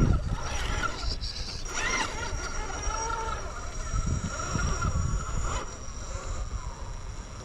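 Radio-controlled rock crawler's electric motor and gear drivetrain whining, rising and falling in pitch as it crawls, over a rough low rumble.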